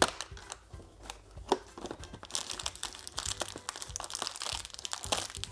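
Perforated cardboard door of an advent calendar being pried open with the fingers and torn along its perforation, with sharp clicks and then a run of crinkling from about two seconds in.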